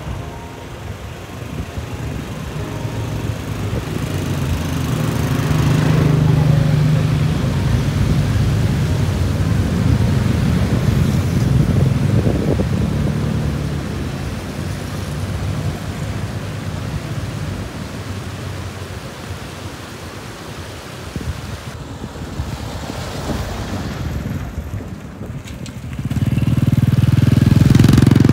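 Motor vehicle engines running, growing louder and fading again, with a louder engine setting in suddenly near the end.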